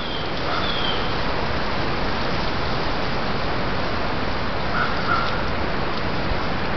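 Steady loud hiss from a trail camera's microphone. A few faint, short bird calls come through it, one about half a second in and two close together near five seconds.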